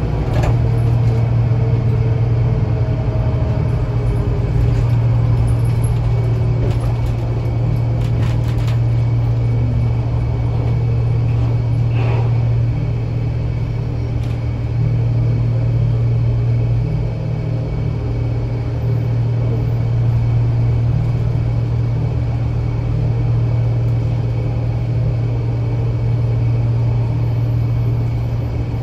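Scania L94UA articulated bus in motion, heard from inside the passenger cabin: a steady low engine drone with road noise. There are a few light rattles about eight seconds in and a brief high squeak about twelve seconds in.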